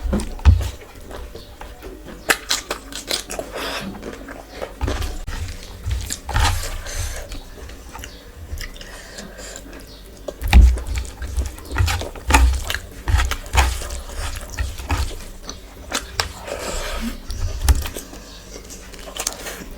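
Close-miked eating: irregular chewing and biting into food, with scattered sharp crunches, wet smacks and low thumps.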